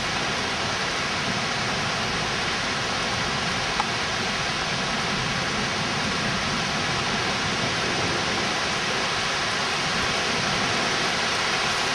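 Heavy rain pouring down steadily, a dense unbroken hiss. A single faint click about four seconds in.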